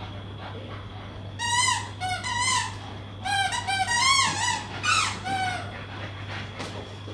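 Staffordshire bull terrier whining in a string of short, high-pitched, wavering squeals during tug-of-war play, starting about a second and a half in and stopping about five and a half seconds in.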